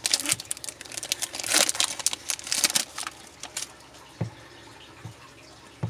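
The wrapper of a Topps Chrome baseball card value pack being torn open and crinkled: a run of crackly rustles over the first three or so seconds, then a few soft knocks as the cards are handled.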